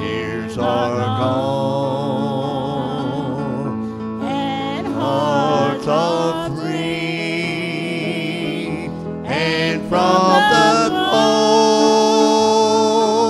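Gospel song: a man and a woman singing together with vibrato over instrumental accompaniment. The sound grows fuller and steadier about ten seconds in.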